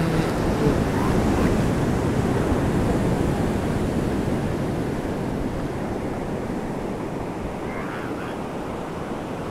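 Surf rushing steadily onto an elephant seal beach, swelling over the first few seconds and then easing. At the very start, the tail of a low, pitched elephant seal call.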